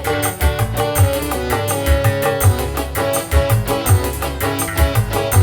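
Instrumental break of a live dangdut song: melodic instruments over a steady drum beat of about two low thumps a second.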